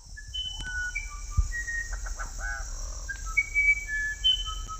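Rainforest birds giving clear, held whistled notes at many different pitches, one after another, with a few short chirps, over a steady high-pitched insect drone.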